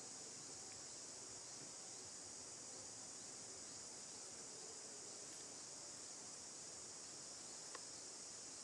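Faint, steady high-pitched drone of an insect chorus, unbroken throughout, with one small click near the end.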